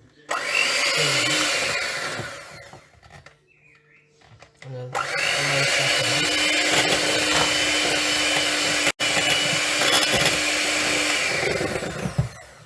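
Electric mixer beating butter icing, run in two bursts: a short one of about two seconds, then a longer one of about seven seconds. Each speeds up as it starts and winds down as it stops.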